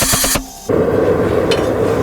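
A fast mechanical clatter of about ten strokes a second stops abruptly. After a short gap a steady machine hum and rush starts, with a small click near the end.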